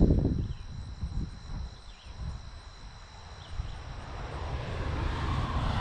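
Wind buffeting the microphone, strongest in a gust at the start, over a steady high insect drone; in the last two seconds a vehicle on the road above grows louder as it approaches.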